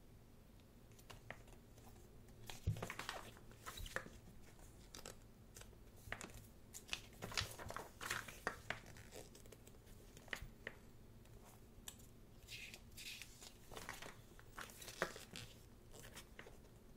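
Paper pages of a thick photobook being turned one after another, with short rustling swishes and soft page flaps at uneven intervals.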